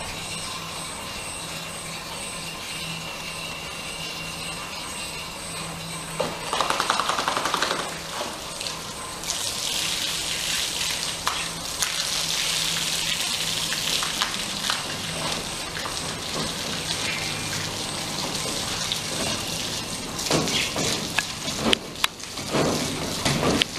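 Water pouring and splashing over a soapy German Shepherd as she is washed by hand. A hissing rush of water runs for several seconds in the middle, and near the end come irregular splashes and slaps.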